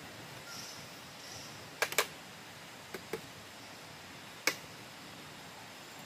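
Machete blade striking the ground and stones: five sharp knocks, in a close pair, another pair, then a single one, over a steady low hiss.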